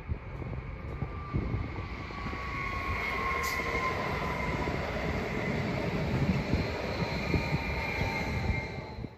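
ODEG Stadler FLIRT 3 XL electric multiple unit (class 427) running past on the track: a steady rumble of wheels on rail, with a thin high whine that slowly falls in pitch. The train builds up over the first couple of seconds and fades near the end.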